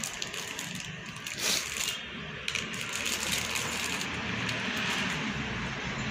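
Clear plastic packaging bag crinkling and crackling as foam darts are pulled out of it and handled, loudest about one and a half seconds in.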